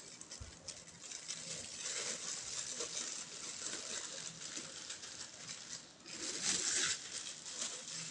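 Rustling and light clicking from handling bicycle parts and packaging, loudest about six and a half seconds in.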